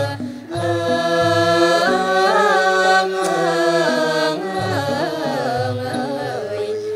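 Female chorus singing a Thai royal tribute song in unison, with long held notes bending into ornamented glides, over a Thai classical ensemble with ching hand cymbals.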